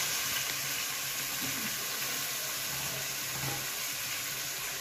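Steady sizzling from raw chicken pieces just added to a hot aluminium pot of fried onion, whole spices and ginger-garlic paste, as the meat starts to cook.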